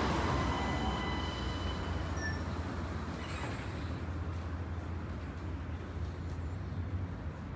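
City street traffic: a loud passing vehicle fades away, with a few thin high squeals in the first three seconds over a steady low rumble.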